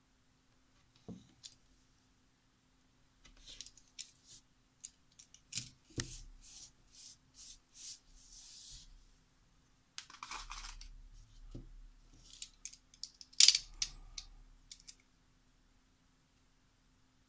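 Utility knife cutting through a rubber eraser, trimming around a carved leaf stamp: short cutting and scraping strokes and scattered clicks and taps as the knife and eraser are handled on paper. The sharpest tap comes about 13 seconds in, and the strokes stop a couple of seconds before the end.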